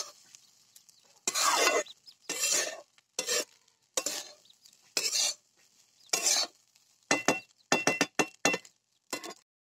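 Flat steel spatula scraping and turning fried rice in a steel kadai, about one stroke a second. Near the end the strokes turn into a quicker run of short metal-on-metal clinks that ring.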